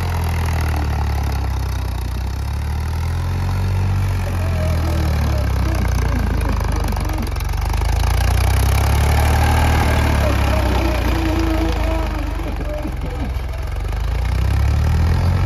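Ford 3600 tractor's three-cylinder engine running steadily, its sound swelling louder about midway, easing, then rising again near the end. Faint voices can be heard underneath.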